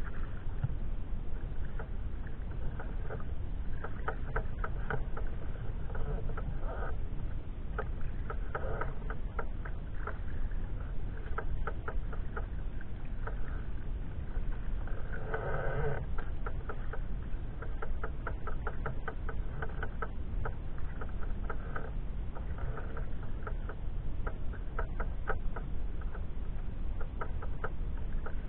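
Sea kayak paddling: water splashing and dripping off the paddle in short irregular ticks over a steady low rumble. A brief louder burst, which PANN takes for an animal, comes a little past halfway.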